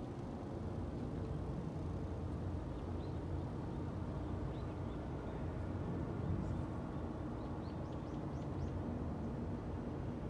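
Steady low hum of city traffic. From about three seconds in, a run of short, high bird chirps that are thickest around eight seconds.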